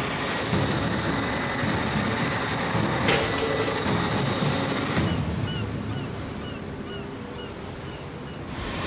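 Steady rumbling machinery noise with a single sharp clank about three seconds in. In the second half it grows quieter, and a faint high chirp repeats evenly.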